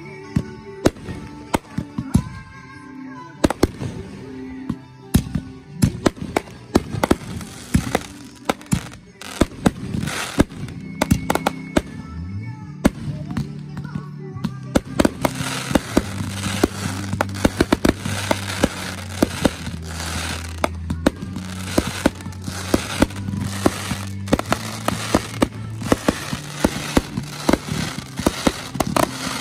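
Fireworks display with shells bursting in sharp bangs, several a second, over music playing underneath. From about halfway the bangs come thicker, with dense crackling, as in a finale barrage.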